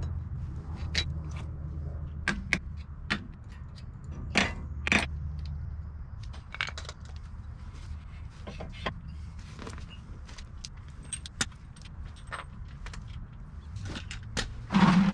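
Scattered metallic clinks and taps of hand tools and parts on a Jeep Wrangler's front wheel hub and brake rotor as it is worked on, with a heavier clunk near the end.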